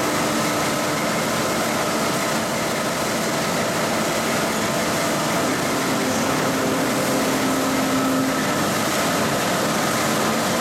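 Siemens-VAI steel coil slitting line running, with steel strip passing over its rollers: a steady mechanical noise with faint steady hums layered in.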